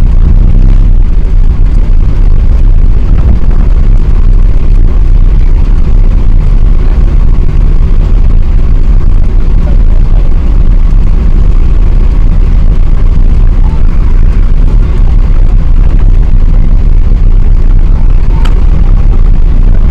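Loud, steady low rumble of an Airbus A380 in flight or on the takeoff run, heard inside the passenger cabin: jet engine and airflow noise.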